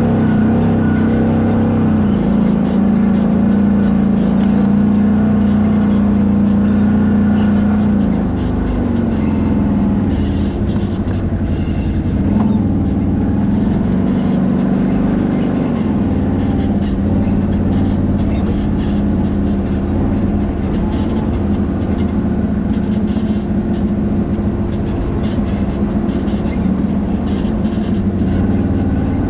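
Off-road side-by-side's engine running under way on a dirt trail, its note dropping about eight seconds in and picking up again a little later.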